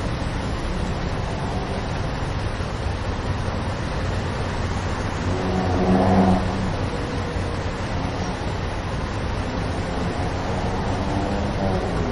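Street traffic: a steady rumble of engines and road noise, with one louder vehicle engine swelling and fading about six seconds in.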